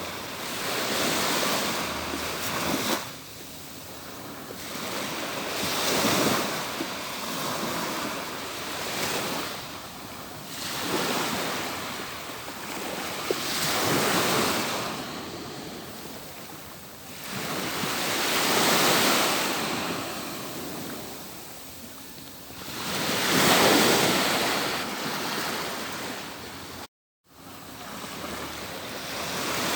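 Atlantic Ocean surf rolling onto a beach, each wave swelling into a rush and then fading, about every four to five seconds. The sound cuts out for a split second near the end.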